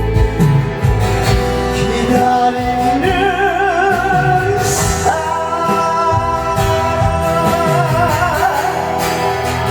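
A song performed live: a singer holds long notes with a wide vibrato over an instrumental accompaniment with a steady low beat.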